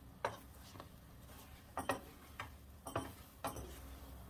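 Wooden spoon clicking and knocking against a pot while stirring and lifting a thick, stretchy Turkish delight mixture cooked to its finished consistency: about seven soft, uneven clicks.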